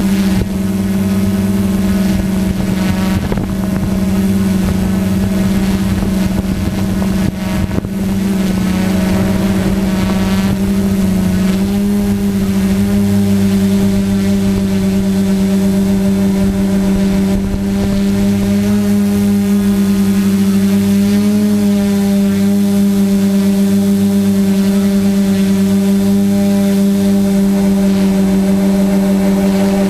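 Multirotor drone's electric motors and propellers humming loudly and steadily, heard from the camera mounted on the drone, with small shifts in pitch as the motors change speed.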